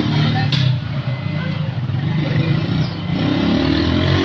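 A steady low machine hum runs throughout, with voices talking now and then in the background.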